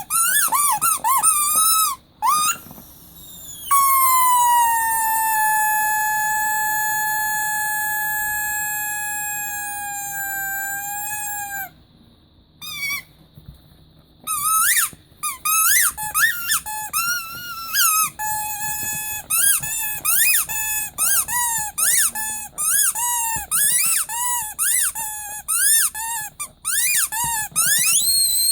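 Rubber squeaky teddy bear toy being squeezed. A few quick squeaks come first, then one long squeak held for about eight seconds. After a short pause comes a fast run of short squeaks, some swooping up and down in pitch.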